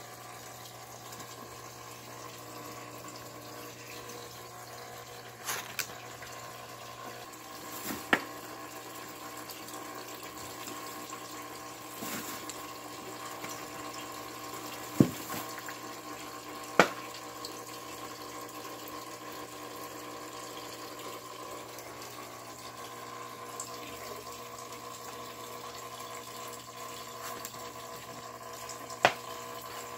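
Steady background hum with a water-like rush, like a running pump, broken by several short sharp knocks spread through it.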